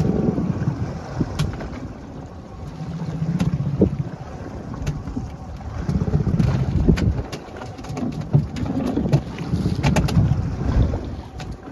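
Wind buffeting the microphone aboard a fishing boat at sea, a low rumble that swells and fades in uneven gusts, with scattered sharp clicks and knocks.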